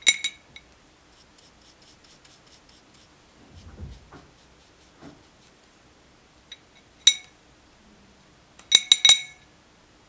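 Paintbrush clinking against a white ceramic palette dish and the watercolour pans in it: a sharp ringing clink at the start, another about seven seconds in, and a quick run of clinks near the end. Between them there is faint ticking from the brush working the paint, and a dull thump about four seconds in.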